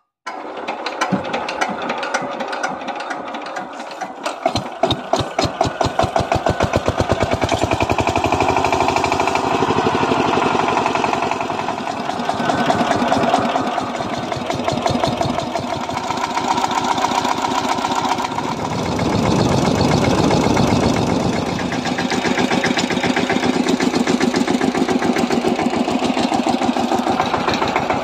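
Kamco KMB200 power tiller's single-cylinder diesel engine running with a rapid, even chugging beat. It grows louder over the first several seconds and swells briefly around twenty seconds in.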